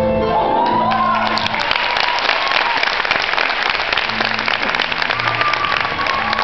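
A cabaret song ends on a held note and chord, and about a second in the audience breaks into steady applause, with a voice or two calling out over the clapping.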